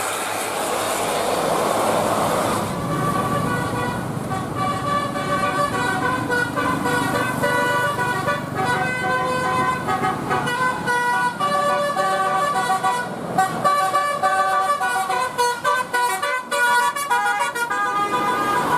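A bus's telolet multi-tone horn playing a quick tune of changing notes, starting about three seconds in after a stretch of traffic noise.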